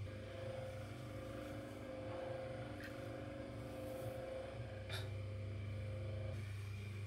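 Electric potter's wheel motor running with a steady hum, with a short click about five seconds in.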